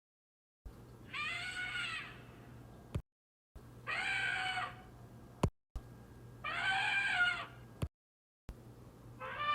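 Woolly mammoth call sound effect: a short pitched animal call that rises and then falls, heard four times. Each call is a separate clip, cut in and out with a click, with dead silence between them and a faint low hum under each.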